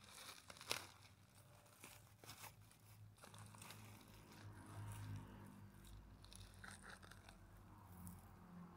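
Faint crackling, crunching and tearing of dry fibrous litter and soil being pulled apart by hand, with a sharper crackle under a second in.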